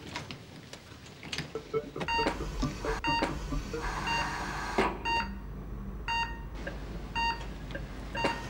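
Operating-theatre heart monitor beeping, a short high beep about once a second, over a low steady hum. A brief hiss comes about four seconds in.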